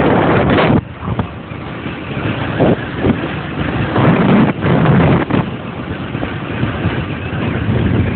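Wind rushing over the microphone on a moving motorbike, with road and engine noise underneath. It is loudest at the start, drops sharply just under a second in, and comes back in gusts about halfway through.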